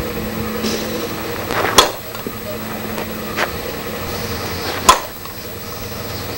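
Two sharp smacks of a softball landing in a leather glove, about three seconds apart, over a steady low hum.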